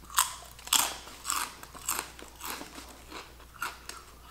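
Crunching bites into and chewing of Lay's Kettle Cooked potato chips. Two sharp crunches in the first second, then softer crunches about twice a second.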